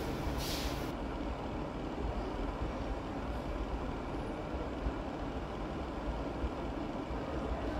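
Steady low mechanical rumble, like a running motor or ventilation, with a short hiss about half a second in.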